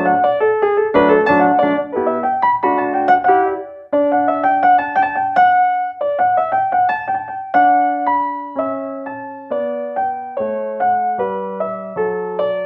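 Digital piano played on its acoustic piano voice, a classical passage: quick runs of notes for the first few seconds, a brief break about four seconds in, then slower melody notes over held bass notes.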